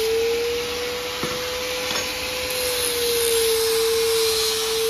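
Electric angle grinder running continuously against a metal exhaust pipe: a steady motor whine over a harsh grinding hiss. Its pitch rises a little about a second and a half in, then sags back about three seconds in.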